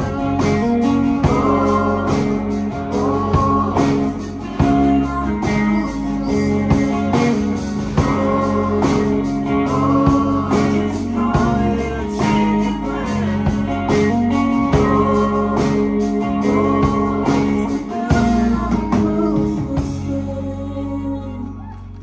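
Live band playing a song: electric and acoustic guitars, bass and drums over a steady beat, with singing. About two seconds before the end the drums stop and the music thins out to guitars.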